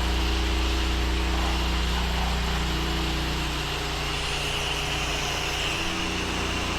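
Gas pressure washer engine running steadily under load, with the steady hiss of the spray wand putting out soft-wash mix through the injector.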